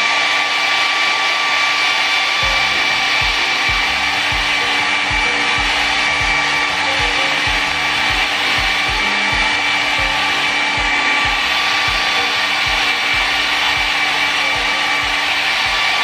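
Kris 600-watt travel hair dryer blowing steadily: an even rush of air with a steady high whine from its fan motor. Background music with a regular beat comes in about two and a half seconds in.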